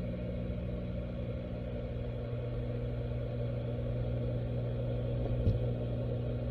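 Steady low mains hum of aquarium equipment, muffled as heard through an underwater camera in the tank, with one faint tap about five and a half seconds in.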